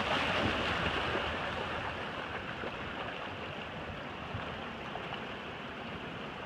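Dogs splashing as they run into a shallow, fast-flowing river. The splashing dies away after a second or so into the steady rush of the river current.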